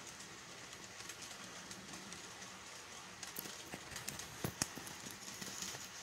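Passenger train cars rolling past, faint, with the wheels clicking irregularly over rail joints and a few sharper clicks in the second half.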